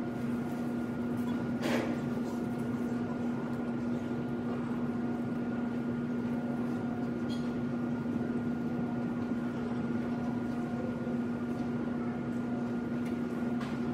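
Steady room hum with a constant low tone and a fainter higher one, broken only by a couple of faint clicks, one about two seconds in and one past the middle.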